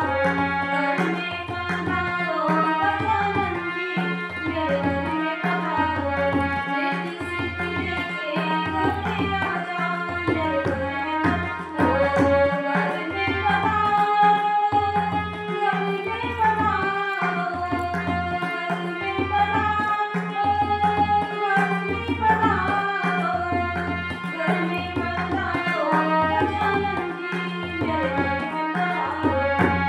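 A woman singing a Hindi devotional bhajan to harmonium accompaniment, over a steady, evenly spaced tabla beat.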